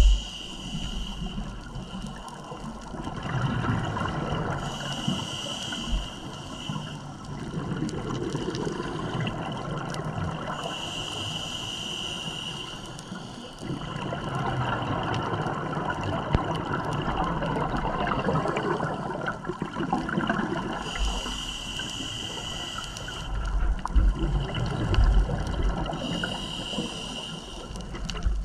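Scuba diver breathing through a regulator underwater: a hissing inhalation every few seconds, five in all, each followed by a longer, noisier gurgle of exhaled bubbles.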